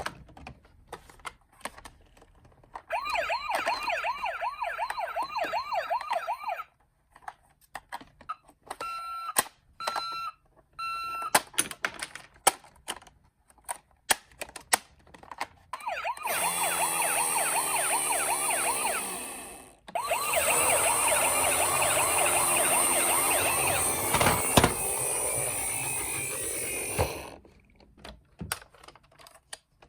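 Electronic toy sirens from ambulance minicars sounding in bursts: a fast warbling siren for a few seconds, then three short beeps, then a longer warbling siren run with a brief break in the middle. Sharp clicks and knocks of the toy cars are heard between and under the sirens.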